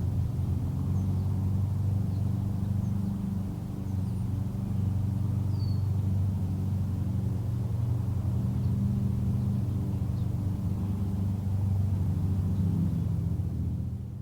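Lawn mower engine running steadily, a low drone at a constant pitch. A few faint bird chirps sound over it.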